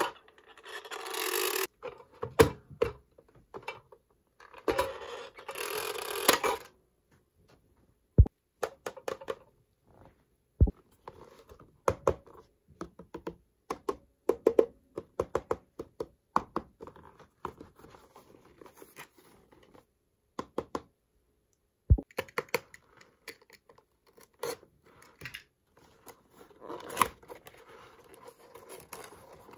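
Miniature toy kitchen appliances and their packaging being unboxed and handled: dense small clicks and taps, two stretches of rustling scraping in the first few seconds, and three sharp knocks spread through the rest.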